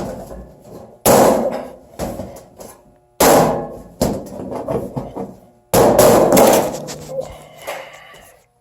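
Hard blows on a 24-gauge sheet-metal furnace base as its drop-in cap is knocked into place. There are about eight hits, the three loudest roughly two seconds apart, each dying away over about a second with a short metallic ring.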